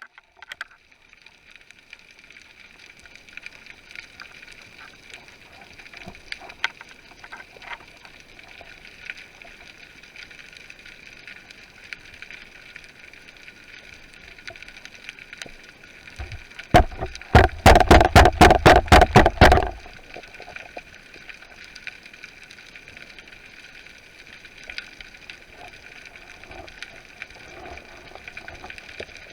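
Underwater sound as heard by a camera in its housing: a steady hiss with faint scattered crackle. About two-thirds of the way through, a loud rapid series of about a dozen sharp knocks comes roughly four a second and stops after about three seconds.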